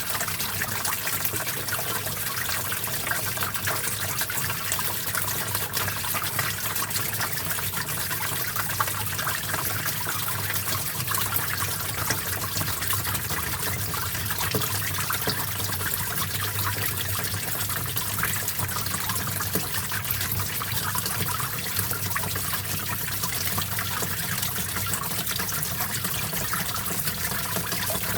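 Shallow stream water trickling and splashing steadily over rocks, a continuous babble with fine splashy detail.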